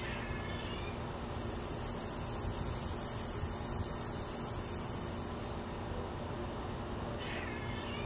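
Two short mewing calls, one at the very start and one about seven seconds in, and a steady high-pitched buzz from shortly after the start until about five and a half seconds in, over a faint low background hum.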